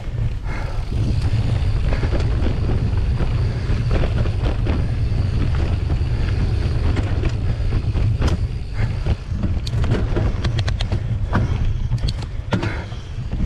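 Giant Trance 3 full-suspension mountain bike rolling along a dirt singletrack: a steady low rumble from the tyres and ride, with scattered clicks and rattles of the bike over bumps that come more often in the last few seconds.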